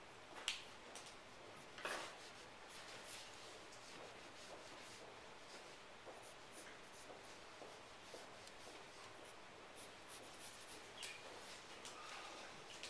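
Pencil scratching and rubbing faintly on paper while shading a drawing, with two light taps about half a second and two seconds in.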